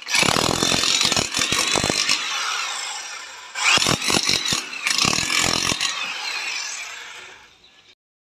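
iBell DH10-78 electric demolition hammer with a flat chisel bit hammering into a plastered wall. Two runs: the first stops about three and a half seconds in, the second starts right after and fades out just before the end.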